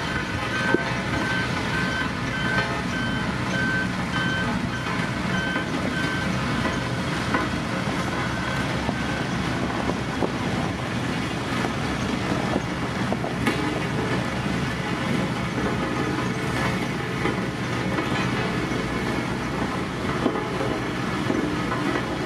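Heavy diesel road-construction machinery running steadily. A repeating warning beep sounds at an even pace and stops about nine seconds in.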